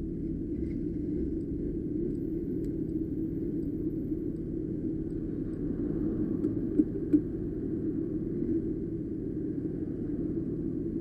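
Street go-kart's small engine running steadily under way, a low rumble mixed with road noise. Two short knocks stand out a little past the middle.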